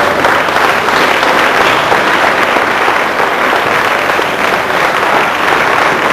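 Audience applauding steadily, dense clapping.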